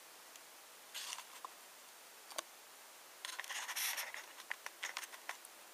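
Light rustling and scraping with a few small clicks: handling noise as the camera is moved about. There is a short scratch about a second in and a longer rustle a little past the middle, followed by several sharp little clicks.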